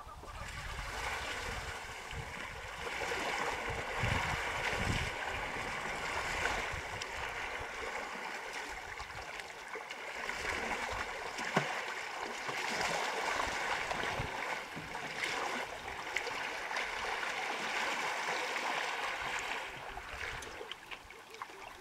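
Water sloshing and splashing around an African bush elephant wading chest-deep close by: a steady rushing hiss of stirred water. There is one sharp click about halfway through.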